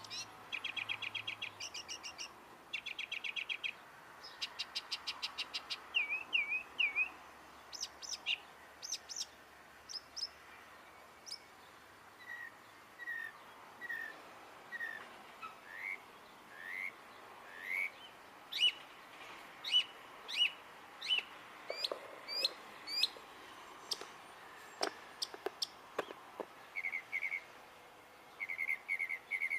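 A songbird singing a long, varied song, switching between different phrase types every few seconds: fast rattling trills, short repeated notes, and series of upward-sweeping whistled notes.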